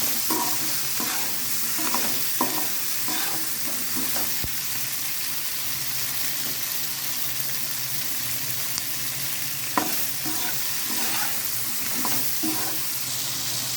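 Chopped okra and small onions sizzling in hot oil in a pan while being stirred, a steady hiss with scattered scrapes and clicks of the spatula against the pan.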